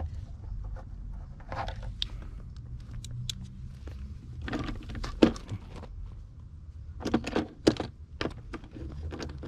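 Scattered clicks and rattles of wires and metal parts being handled over a steady low hum, as the rear blind's electric motor is wired straight to power and fails to run.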